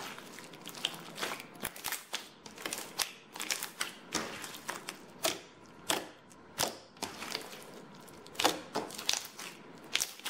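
Hands squeezing and poking a jiggly water slime with a dried crust on top, giving a steady stream of irregular crackles, clicks and wet pops as the crust breaks and the slime is pressed.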